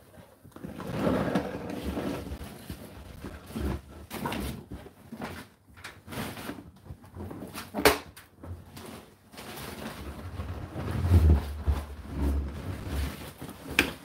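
Whirlpool WFO3P33DLXUK dishwasher door being opened after its cycle has ended: a sharp latch click about halfway through, then low rumbling and knocks as the door comes down.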